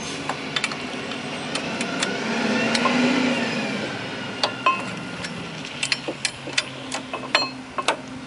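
Scattered sharp metallic clicks and clinks of a ratchet and socket being fitted onto a front brake caliper bracket bolt. A broad swell of noise rises and falls near the middle.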